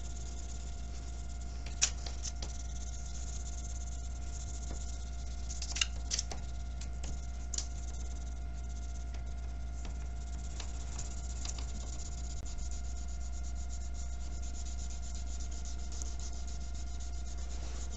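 Wax crayon rubbing back and forth on paper, a steady scratchy colouring of a large area, with a few light clicks, over a steady electrical hum.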